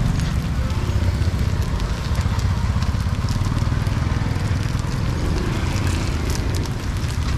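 Busy street-market background noise: a steady low rumble under a crackling hiss, with scattered sharp clicks and knocks.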